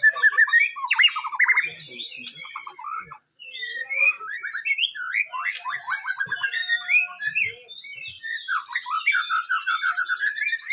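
White-rumped shama (murai batu) singing a varied song of quick whistled phrases, with a short pause about three seconds in. From about eight seconds in it runs into a long string of fast repeated notes.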